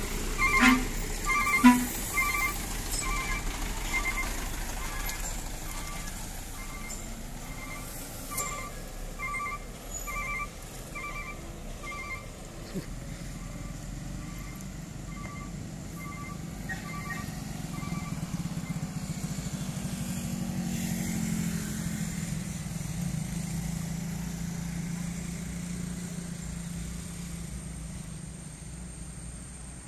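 A heavy cargo truck passes close by on a steep climb, its diesel engine running under load with a few loud knocks from the body, while an electronic beeper on the truck repeats about twice a second and fades away. Later a low engine drone from a heavy vehicle labouring uphill swells and then falls away.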